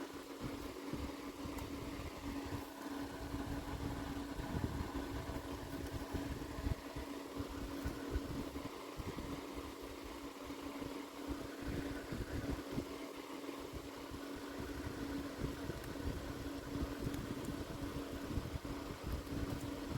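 A steady mechanical hum with an uneven low rumble underneath, like a fan or small motor running; a few faint clicks near the end.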